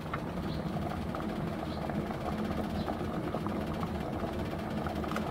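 Cubed potatoes at a rolling boil in an aluminium pot of water: a steady low bubbling rumble with many small pops.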